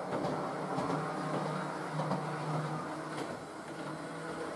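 Model railway parcels unit under DC control running smoothly round the track: a steady motor hum, almost like a diesel purr, with a few light clicks from the wheels on the rails.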